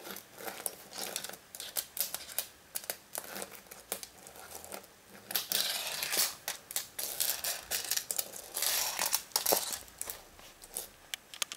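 Rapid crinkling and rustling of paper and plastic with many light clicks and taps, as the folded paper instruction leaflet from a Kinder Joy egg is opened out and the small plastic toy handled. The crinkling comes loudest in two longer spells, a little past the middle and again near the end.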